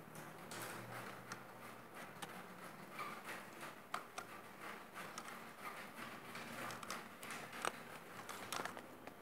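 Irregular light clicks and knocks of hand work on small parts, with two sharper knocks, about four seconds in and near the end.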